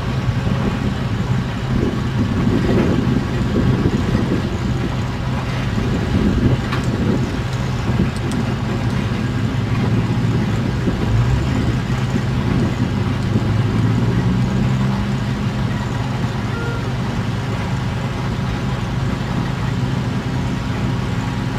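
Vacuum tank truck's engine running steadily while the truck offloads a load of water, with water gushing out of its discharge hose.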